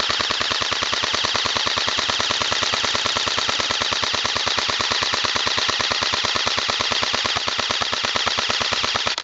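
Airsoft electric rifle (AEG) firing one long, unbroken full-auto burst, its shots ticking at a fast, even rate. The burst cuts off abruptly at the end.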